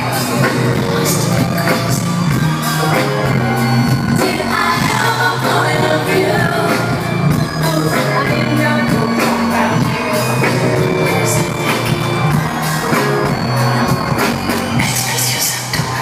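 Live pop concert music over a large PA system, with a steady beat and singing, heard from within the crowd.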